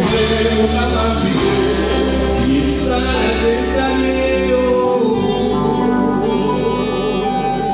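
A live band playing with a singer, at a sound check. A heavy bass note holds under the music until it drops out about five seconds in.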